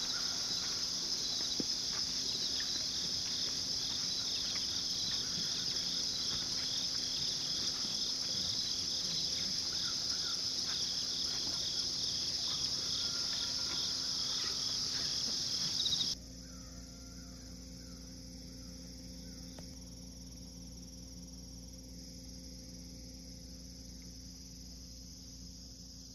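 Evening insect chorus: a steady, high-pitched trill with a regular pulsing. About 16 seconds in it cuts off abruptly to a much quieter background with a low steady hum.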